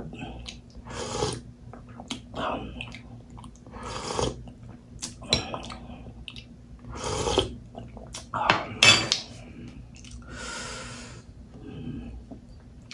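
Metal spoon clinking and scraping in a glass bowl of pork sinigang broth, with slurps of the soup from the spoon about every three seconds.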